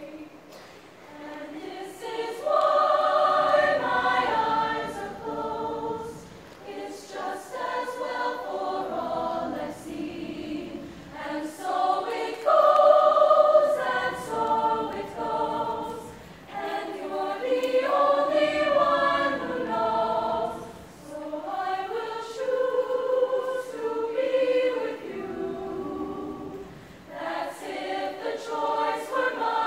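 A women's show choir singing together, in phrases that swell and fade every few seconds.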